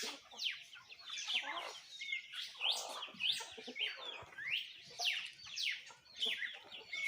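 Dawn chorus of several songbirds chirping and singing over one another in quick, overlapping notes, among them red-cowled cardinals.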